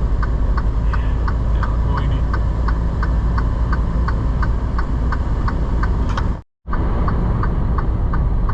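Steady low rumble of a semi truck's engine and drivetrain heard from inside the cab while driving, with a regular light ticking about two to three times a second. The sound cuts out completely for a moment about six and a half seconds in.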